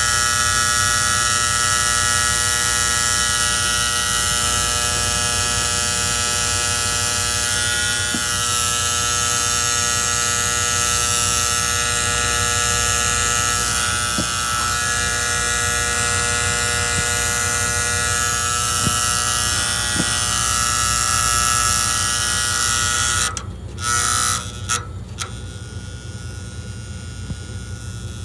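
Magnetic diaphragm gas valve on an antique gas furnace buzzing loudly and steadily, a noise the owner puts down to the valve's spring-loaded plunger. About five seconds before the end the buzz cuts off suddenly, comes back twice for a moment, then stops, leaving a quieter low hum.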